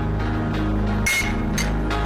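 Dramatic background music score: a sustained low drone with two sharp percussive hits, about a second in and half a second later.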